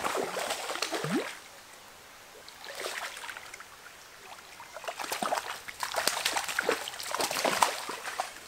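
A hooked fallfish splashing at the stream's surface as it is played on the line, in three bouts: one at the start, a short one about three seconds in, and a longer one from about five seconds to near the end.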